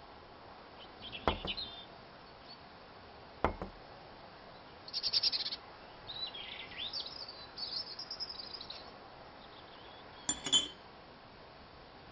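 Two plates knocking down onto a hard table top, then a run of high squeaks from forks scraping over the plates, and a sharp ringing clink of a fork on a plate near the end.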